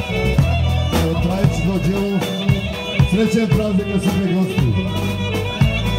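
Live Macedonian folk band music: a drum beat under a moving bass line and a quick, ornamented melody.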